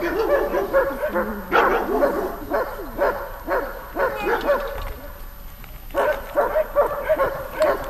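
A dog barking and yipping over and over in short calls, several a second, with a brief lull about midway.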